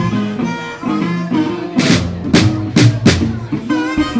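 Live blues band playing: a harmonica plays melodic phrases over upright bass notes, with a large single drum struck with a stick. A cluster of loud drum hits comes about two to three seconds in.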